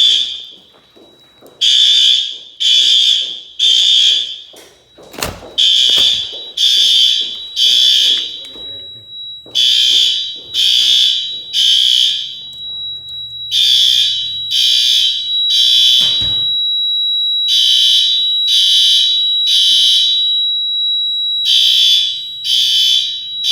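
Gamewell-FCI 7075 fire alarm bell sounding in the temporal-three evacuation pattern: three short rings, a pause, then three more, over and over. A steady high-pitched tone comes in about a third of the way through and holds, and there is a short thump about five seconds in.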